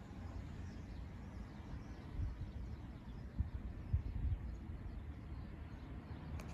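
Outdoor ambience: a low rumble of wind on the microphone, with a few stronger gusts around the middle, and faint bird chirps.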